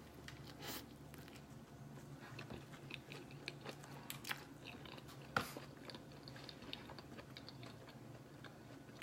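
A person biting and chewing a panini up close, with small crunches and mouth clicks scattered through; one sharper click about five seconds in.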